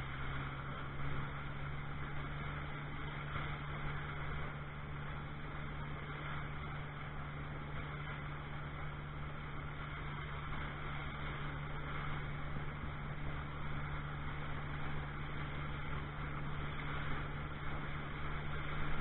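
A motorboat under way: its engine drones steadily at a constant pitch under a steady rush of wind and water.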